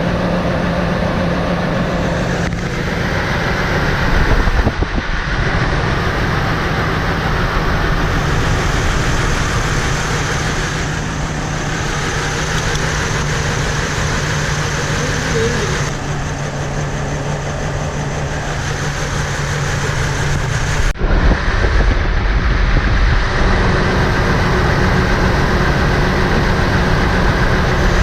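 A 2004 Chevrolet TrailBlazer's 4.2 L Vortec inline-six engine running steadily, an engine being diagnosed for a misfire. It gets louder and deeper about three quarters of the way in.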